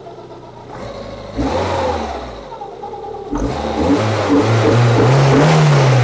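Citroën BX GTI 16V's 16-valve four-cylinder engine being revved: two short throttle blips, then held at higher revs for a few seconds, the pitch rising and easing. The engine picks up revs quickly, showing how responsive it is.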